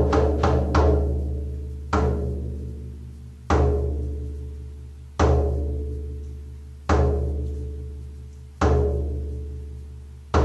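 A Reiki drum, a hand drum, finishes a run of fast even beats less than a second in, then is struck in slow single beats about every 1.7 seconds, each ringing with a deep tone and slowly fading. These slow beats are the signal beats of the drum journey that come before the rapid callback.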